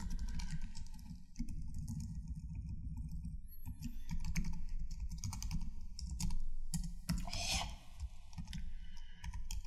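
Typing on a computer keyboard: irregular runs of keystroke clicks as text is entered, over a low background hum.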